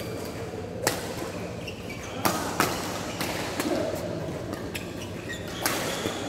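Badminton rackets striking a shuttlecock during a doubles rally: several sharp, irregularly spaced hits, echoing in a large hall. Short squeaks from shoes on the court mat come between the hits.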